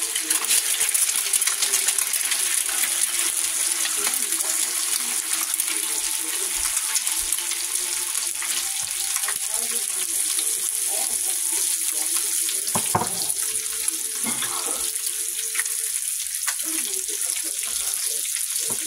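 Eggs sizzling in hot bacon grease in a cast iron skillet, a steady hiss with a few faint clicks.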